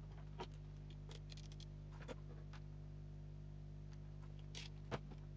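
A handful of light clicks and taps as small electronic components and tools are handled on a wooden desk, the sharpest near the end, over a steady low electrical hum.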